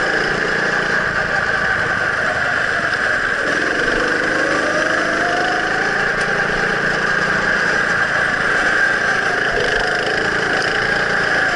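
Go-kart's small engine heard on board while lapping, its pitch climbing as it speeds up and dropping back three times, as for straights and corners. A steady rush of wind and tyre noise lies under it.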